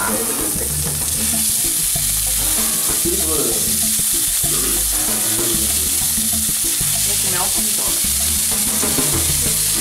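Raw chicken breast fillets sizzling steadily as they are seared in a hot nonstick frying pan, with more pieces laid in and moved about with a fork.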